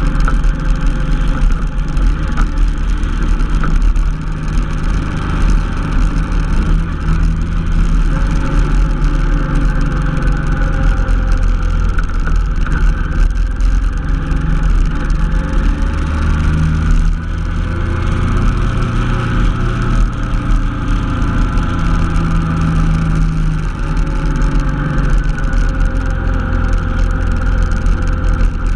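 Honda NT700V Deauville's V-twin engine running steadily under way, over a heavy low rumble. The engine note dips briefly a little past halfway, then climbs again as the throttle is opened.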